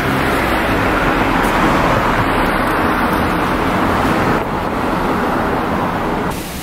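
Steady road-traffic noise, a continuous rushing hiss of passing vehicles. It drops a little in level about four and a half seconds in and again near the end.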